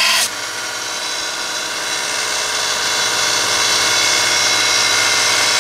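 A steel twist drill is ground against the Norton Blaze abrasive belt of a running 2x72 belt grinder. The grinding stops abruptly about a quarter second in as the drill is lifted off, and the grinder keeps running unloaded, running steadily.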